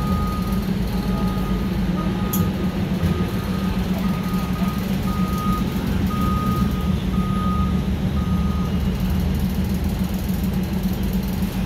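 Steady low drone and rumble of a diesel-hauled express train rolling slowly through a station, heard from a passenger coach. A repeated high electronic beep sounds roughly twice a second over it and stops about three-quarters of the way through.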